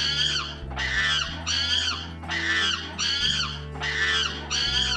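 Monkey sound effect: high-pitched screeching chatter, repeated about once a second for six calls, over soft background music.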